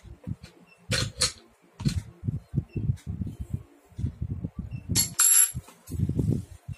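Steel spanners clink and ring on a tiled floor about five seconds in, among dull knocks and bumps from handling a child's balance bike frame and front wheel while the wheel is fitted into the fork, with a few sharp clicks in the first two seconds.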